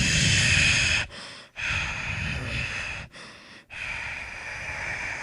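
A person breathing hard close to the microphone: three long, noisy breaths with short pauses between them.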